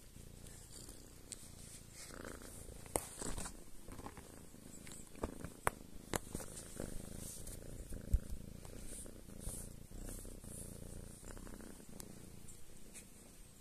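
Tabby cat purring steadily while being stroked, a continuous low rumble. Several sharp clicks and rustles close to the microphone cut in between about three and eight seconds in, the loudest near eight seconds.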